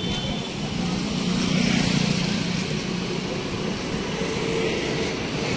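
Road vehicle driving along a street: a steady low engine hum with road and wind noise. The hum swells about two seconds in.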